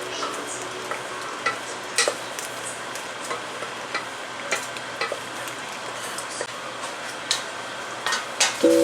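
Food sizzling in a pan as it is stirred, with scattered clicks of the utensil against the pan.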